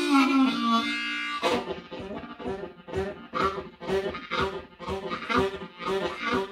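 Blues harmonica imitating a train: a held chord bent down in pitch like a train whistle for about the first second and a half, then a steady rhythmic chug of breathy pulsed chords.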